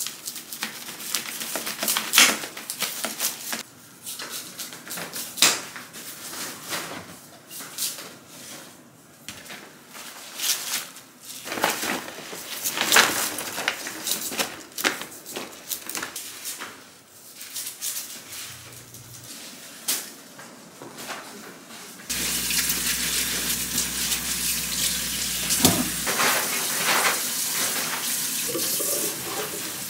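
Kitchen knives crunching through napa cabbage bases and leaves being snapped and pulled off, a series of sharp irregular crunches. About 22 seconds in, a kitchen tap starts running steadily into a sink as the cabbage is rinsed.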